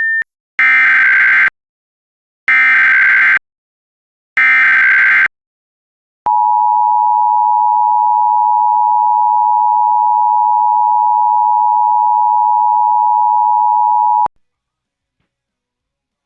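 Emergency Alert System header: three one-second bursts of warbling SAME digital data tones, about a second apart. A steady EAS attention tone follows for about eight seconds and then cuts off suddenly.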